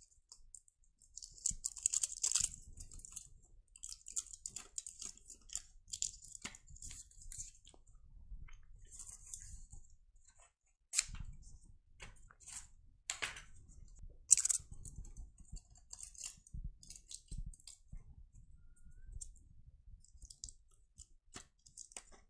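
Aluminum foil tape being handled and pressed onto a computer motherboard: irregular crinkling and crackling with scattered clicks, a short pause about ten seconds in, and one sharp snap about fourteen seconds in.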